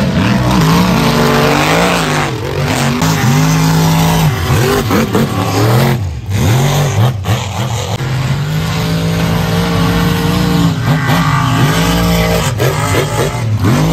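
Mud-bog race truck engines revving hard, the pitch swinging quickly up and down, then holding high and steady for a few seconds before swinging again near the end.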